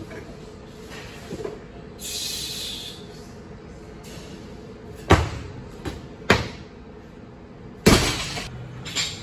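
Weightlifter's clean and jerk with a 107 kg barbell: sharp thuds of feet and bar on the wooden lifting platform about five and six seconds in as the bar is jerked overhead, then the loudest crash near the end as the barbell with rubber bumper plates is dropped onto the platform.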